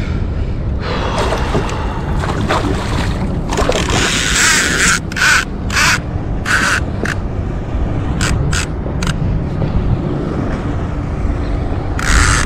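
Wind rumbling on the microphone over open water, broken by a series of short, sharp hissing bursts about halfway through and once more near the end.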